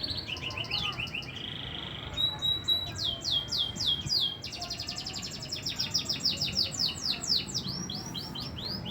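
Domestic canary singing a long, varied song: fast trills, a brief held trill, then long rolls of repeated high downward-sweeping notes, several a second, that speed up midway and slow again near the end.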